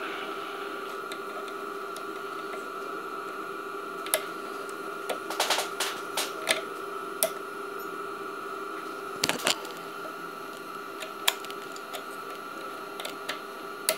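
A CNC milling machine humming steadily with two constant tones, with scattered sharp clicks and taps over it, some in quick clusters.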